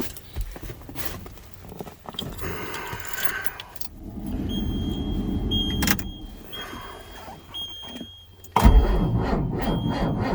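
Keys and cab rustle, then a dash warning buzzer sounding in on-off high beeps. About eight and a half seconds in, the starter engages suddenly and the 8.3 diesel cranks over with a rhythmic churn in the cold, without catching.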